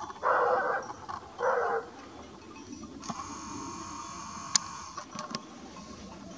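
A dog barking, two short barks in the first two seconds, followed by a faint steady tone and a single sharp click.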